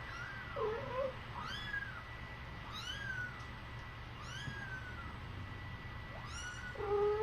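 A young kitten mewing repeatedly in high, thin cries, about five mews each rising and then falling in pitch, while straining at its first bowel movement.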